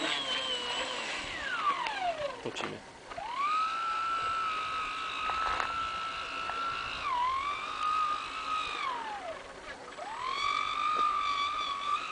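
Electric motor of an RC hydrofoil boat (Typhoon 600 with a 42 mm prop) whining, its pitch following the throttle: it starts high, falls away about two seconds in, climbs back and holds, dips briefly near the middle, falls again about nine seconds in, then climbs back and holds steady near the end.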